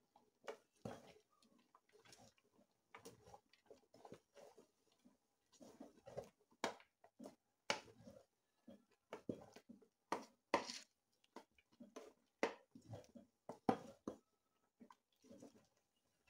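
A wooden stirrer knocking and scraping against the sides of an aluminium cooking pot as thick soup is stirred, in a run of irregular short knocks, a few of them sharper and louder.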